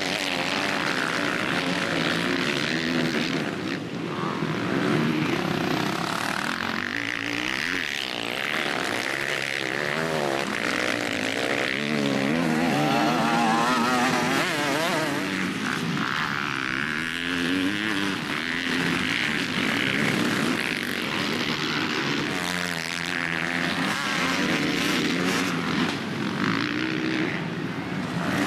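Motocross bikes racing over a dirt track, several engines revving hard, their pitch rising and falling again and again as the riders work the throttle and shift gears.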